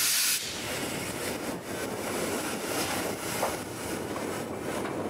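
Steam hissing from the cylinder drain cocks of DR class 52.80 steam locomotive 52 8079, cutting off sharply about half a second in. After that comes a steady rushing of wind on the microphone, with a few faint knocks.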